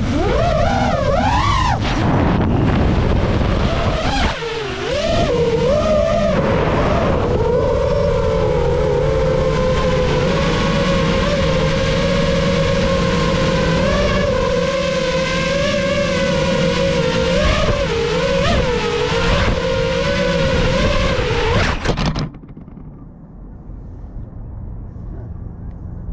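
FPV racing drone's brushless motors and propellers whining, the pitch rising and falling as the throttle changes. The whine cuts off abruptly about four seconds before the end as the drone lands, leaving only a faint low hiss.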